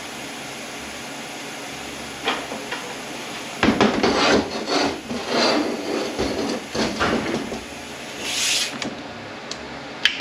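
Irregular scraping, rubbing and knocking of metal transmission parts and hand tools being shifted and worked on a bench, loudest from about three and a half seconds in, with a brief hiss near the end.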